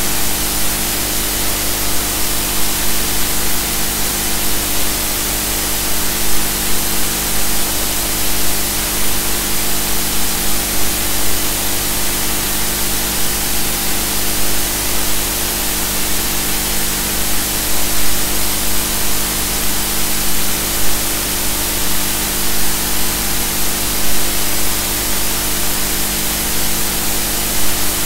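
Steady loud hiss with a constant hum of several steady tones underneath, unchanging throughout: system noise on an ROV survey recording, with no distinct events.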